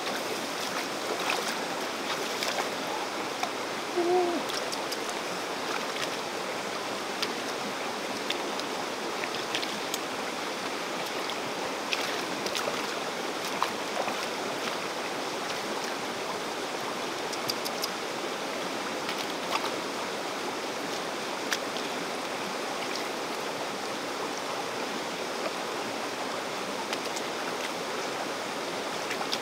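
Shallow rocky stream running steadily, with small splashes and clicks scattered through as hands search the water among the stones. A brief low hooting call about four seconds in.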